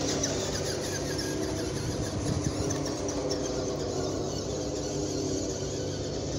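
Whine of a New Bright 1:6 Ford F-150 RC truck's electric motor and gears as it drives across grass, with faint shifts in pitch as the truck speeds up and turns.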